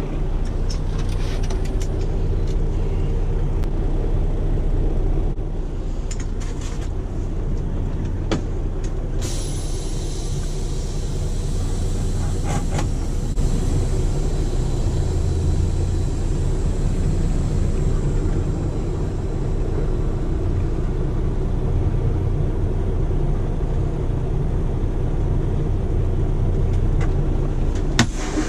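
Semi-truck's diesel engine running steadily, heard from inside the cab as the truck creeps forward, with a few sharp clicks and a faint steady high whine that starts about nine seconds in.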